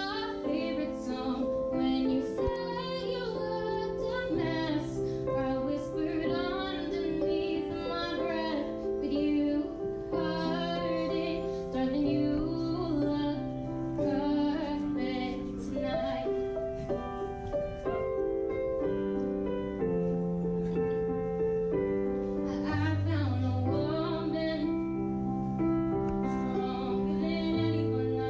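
A teenage girl singing a slow first-dance song live, her voice wavering through long held notes over a keyboard accompaniment with sustained low notes.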